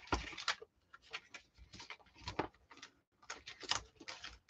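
Irregular rustling and light clicks from plastic packaging and paper scrapbooking embellishments being handled, in short bursts a few times a second.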